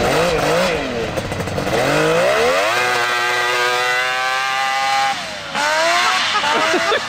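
Two-stroke engine of a track-converted Can-Am Maverick X3 side-by-side revving up under load. It holds a steady high pitch for about two seconds, drops off about two-thirds of the way in, then climbs again. The driver takes the steady top end for the gearing problem the tracks bring, the speed topping out at around 40.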